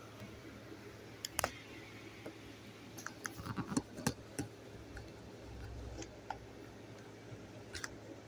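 Handling noise: a scattered run of small clicks and taps, clustered about three to four seconds in, over a faint steady hum.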